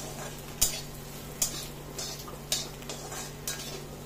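A spatula stirring spiced gourd slices in a kadai, tapping and scraping against the pan in sharp clicks about once a second, over a steady low hum.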